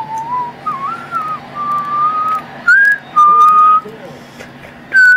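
A person whistling a tune: a string of clear single notes, some sliding up or down and some held. The notes get much louder about halfway through.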